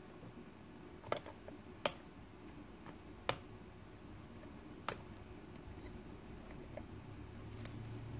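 A handful of sharp, irregularly spaced plastic clicks as a knife blade pries at the plastic timer dial of a Fish Mate F14 automatic fish feeder.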